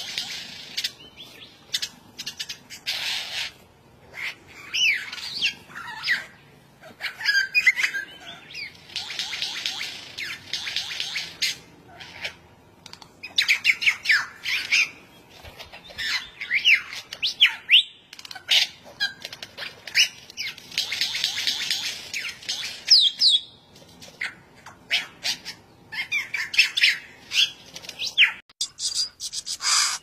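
Male superb lyrebird singing its courtship display song: bouts of quick gliding whistles, rapid clicks and buzzy rattles, broken by short pauses.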